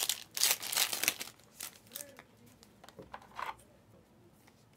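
Foil trading-card pack wrapper crinkling as it is pulled open by hand, loudest in the first second and a half, then a few lighter rustles and clicks as the cards are handled.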